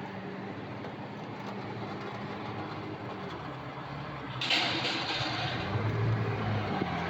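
Car engine running steadily while driving. About four and a half seconds in, a louder rushing noise comes in and stays.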